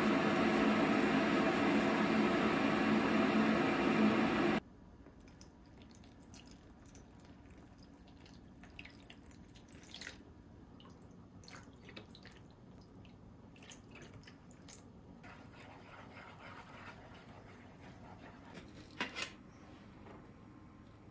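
Water running steadily from a kitchen tap into a sink, shut off abruptly about four and a half seconds in. It is followed by scattered light clicks and knocks of dishes and utensils.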